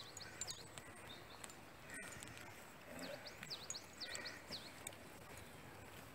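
A small bird singing outdoors: two quick runs of high, sweeping chirps, a short one at the start and a longer one about three seconds in, over faint background sound with a few light taps.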